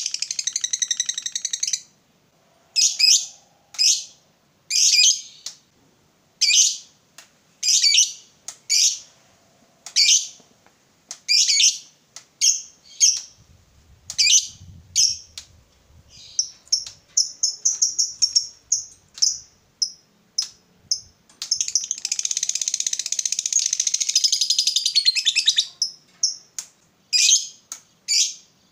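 Lovebird calling: sharp, high chirps about once a second, broken by quick runs of rapid chattering. The longest is a continuous rapid chatter ("ngekek") of about three and a half seconds, lasting from roughly two thirds of the way in.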